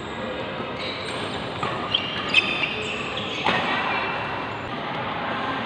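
Echoing badminton-hall ambience between rallies: low voices in the background, with a couple of short sharp knocks and brief high squeaks about two seconds in.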